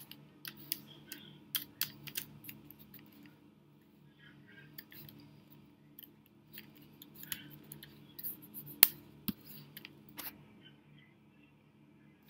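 Computer keyboard keys and mouse clicking irregularly as code is typed and edited, a little louder around the middle, over a faint steady low hum.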